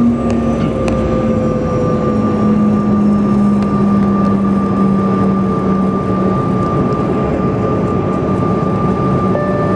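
Cabin noise of a jet airliner in flight: a steady roar with an even hum, whose lower tone settles slightly lower in pitch twice.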